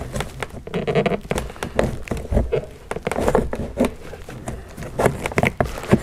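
Plastic interior door handle trim of a BMW F10 5 Series creaking and clicking as a plastic pry tool works at a hidden retaining clip, with irregular clicks and scrapes and a brief creak about a second in.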